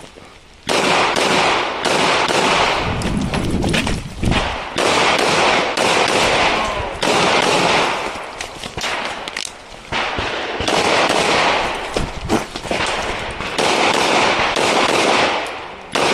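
Rapid pistol shots fired in several quick strings with short pauses between them, each shot trailing off in a long echo, as a handgun stage is shot.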